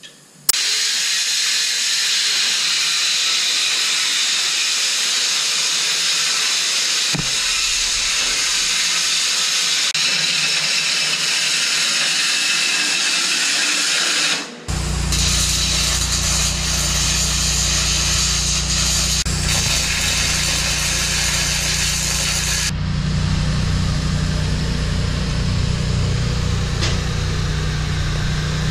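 A power tool cutting aluminium plate: a loud, steady, high-pitched noise that starts abruptly. About halfway it breaks off for a moment, and a steady low hum runs beneath it from then on.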